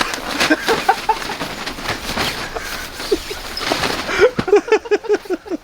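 Scattered rustling and clicking, then a man laughing in a quick run of short ha's near the end.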